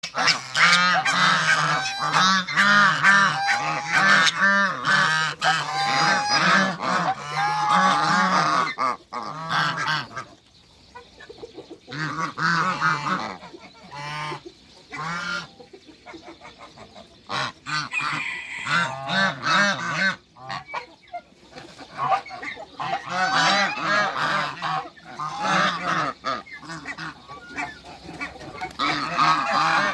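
A flock of African geese honking, many calls overlapping. The honking dies down for a moment about ten seconds in and again around twenty seconds, then builds up again near the end.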